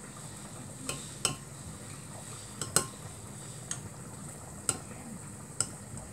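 Metal spoon clinking against a glass measuring cup and a plate while scooping out thick béchamel sauce: about seven sharp clinks at irregular intervals, the loudest near the middle, over a steady low hum.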